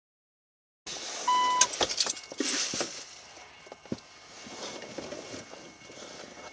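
A short electronic beep, then a cluster of clicks and a jangling rattle, settling into a faint steady hiss with a few small knocks.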